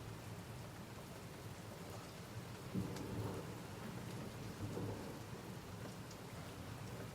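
Steady rain falling, with low rumbles swelling about three and five seconds in that are likely thunder.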